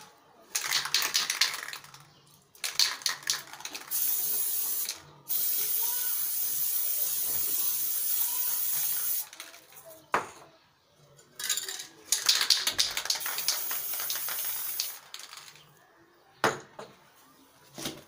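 Aerosol spray-paint can: the mixing ball rattles in quick shakes, then paint sprays in a steady hiss for about five seconds, broken briefly near the start. The can is shaken with rattling again later.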